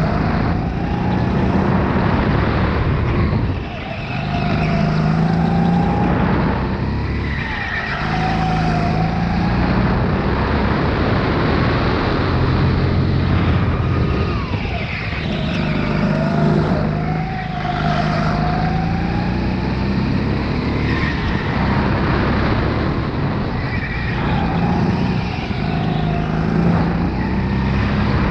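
Sodi RX8 rental go-kart's engine driven flat out, heard from onboard: its pitch climbs on the straights and drops off into the corners, several times over.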